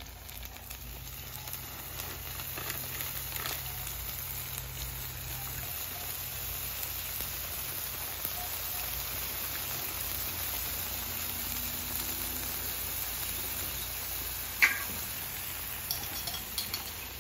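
Hash brown casserole cakes sizzling steadily in butter on a hot Camp Chef flat top griddle, with faint crackles. A single sharp click comes near the end.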